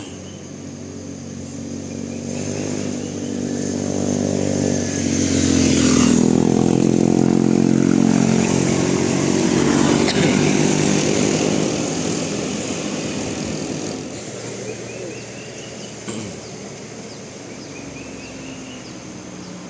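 A motor vehicle passes by. Its engine grows louder over the first few seconds, peaks about six to ten seconds in with its pitch sliding down as it goes past, then fades away.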